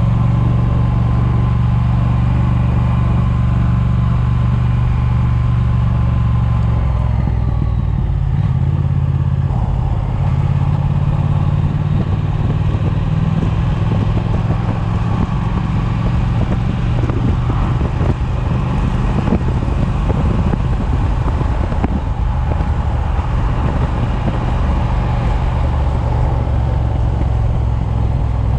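Triumph motorcycle engine running while under way, with wind noise on the microphone. The engine note shifts about seven seconds in.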